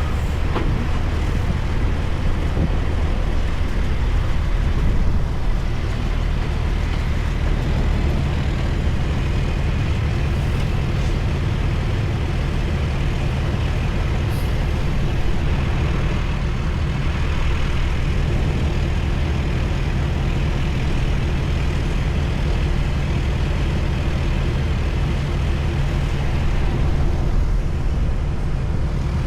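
Heavy-haul diesel truck running steadily with road noise, pulling a heavy excavator load.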